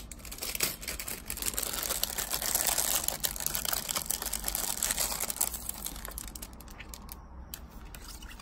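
Clear plastic packaging crinkling and crackling as it is opened and handled, a rapid run of small crackles that is loudest in the middle and dies down near the end.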